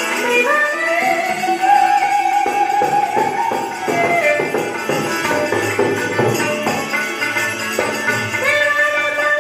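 Music: a melody line that glides up and then holds long notes, over rhythmic percussion.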